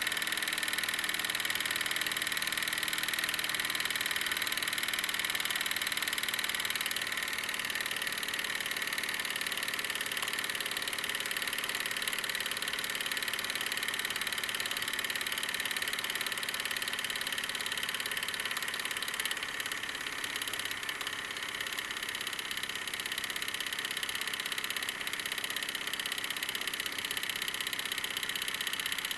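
Wilesco D-18 tabletop steam engine running steadily under steam, a continuous mechanical chuffing and clatter. It gets slightly less even in the second half.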